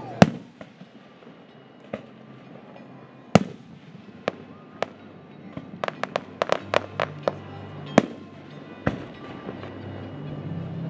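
Fireworks display: aerial shells bursting overhead with sharp bangs, a few spaced out at first and then a quick run of reports in the second half.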